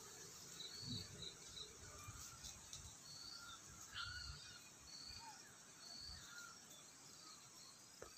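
Faint outdoor ambience: a low hiss with short high chirps recurring about once a second, and one slightly louder call about four seconds in.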